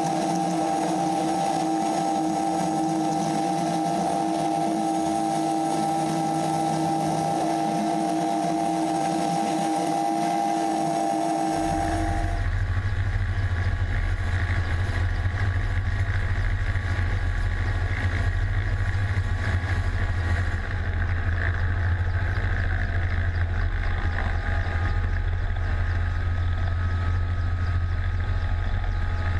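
Mil Mi-24 helicopter's twin turboshaft engines and rotor running, heard from a camera mounted on the airframe as a steady whine with several held tones. About twelve seconds in the sound changes abruptly to a heavy, deep rumble of rotor downwash and wind on the microphone as the helicopter moves off over the grass.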